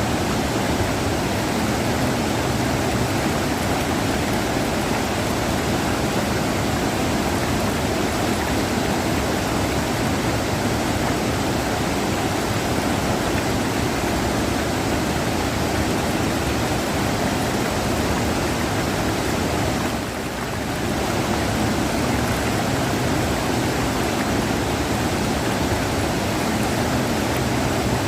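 River water rushing in a steady, even wash of noise, dipping briefly about twenty seconds in.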